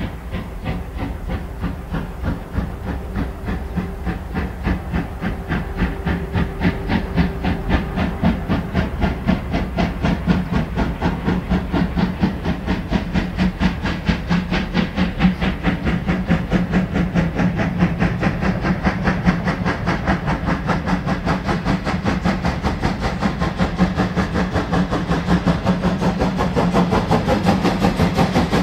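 DR class 41 two-cylinder steam locomotive 41 1144 working an empty freight train: its exhaust beats in a fast, even rhythm of chuffs over a steady hiss of steam, growing louder as it draws nearer.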